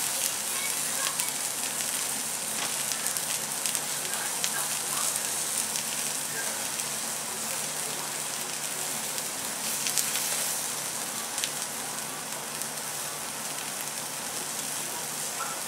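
Sweet shrimp heads sizzling on aluminium foil in a hot frying pan, a steady hiss with frequent small crackles and pops as the shells roast crisp.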